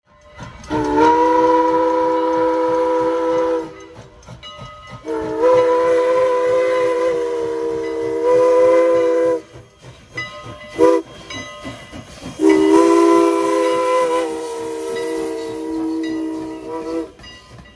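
Chime steam whistle of Canadian National 89, a 2-6-0 steam locomotive, sounding several tones at once in two long blasts, a short one and a final long one: the long-long-short-long pattern of a grade-crossing signal. The locomotive's running and hiss of steam fill the gaps between blasts.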